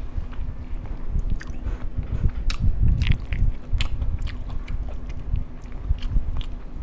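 A man chewing a mouthful of masala rice loudly, with many short mouth clicks.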